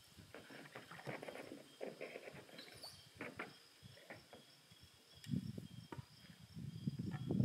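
Faint, steady high insect trilling, with scattered irregular knocks and rustles, the strongest about five seconds in and near the end.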